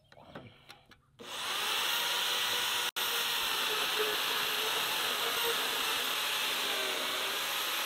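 Vevor portable bandsaw running and cutting through rusty steel pipe: a steady high hiss and whine that starts about a second in. It drops out for an instant about three seconds in.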